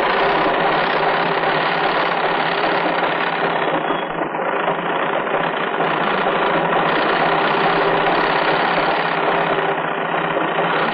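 Treadle sewing machine running fast and steadily: a dense, continuous mechanical rattle.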